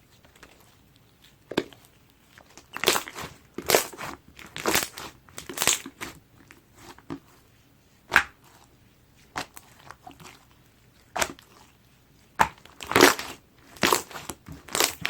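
Clear glue slime being squeezed and worked by hand, giving irregular wet pops and crackles, some in quick clusters and some single, with short quiet gaps between.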